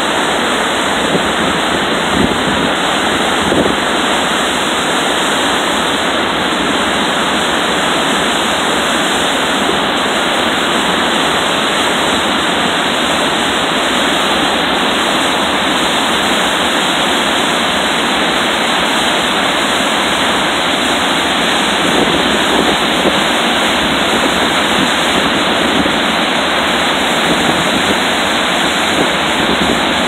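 Selfoss, a wide horseshoe waterfall of glacial meltwater, pouring over a cliff edge in a loud, steady rush of water.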